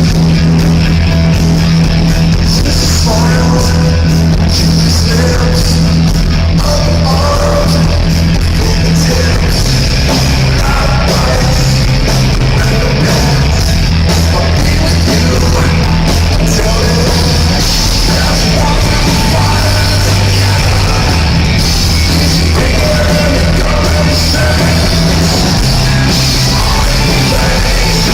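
Live rock band playing loudly, with electric guitars, bass and drums and a voice singing over them.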